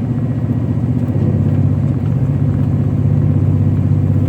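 Car engine and road noise heard inside the cabin while driving on a snowy road: a steady low drone that gets a little louder about a second in.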